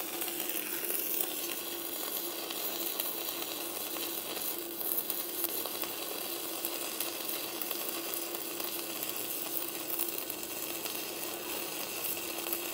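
Stick-welding arc from an Arc200 welder burning a 3.2 mm electrode at about 140 amps: a steady, even crackling sizzle with a low hum under it.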